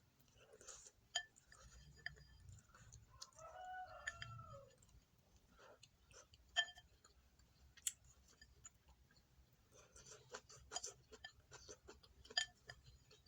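Faint eating sounds: scattered sharp clicks and taps of utensils against a dish, with chewing. About three seconds in, a faint call in the background rises then falls over a second and a half.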